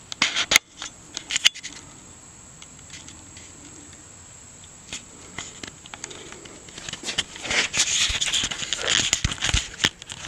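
Handling noise from the phone camera being moved about: a few sharp clicks about a second in, then a dense stretch of crackling rustle near the end.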